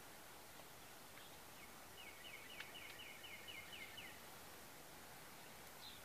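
A small songbird singing: a quick run of about ten repeated short notes, about five a second, lasting about two seconds, with single high chirps before it and near the end. A faint steady hiss sits beneath.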